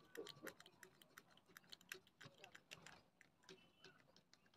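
Faint, irregular small clicks and ticks as the legs of a burnt-out LA4440 amplifier IC are bent back and forth and snapped off the circuit board, rather than desoldered.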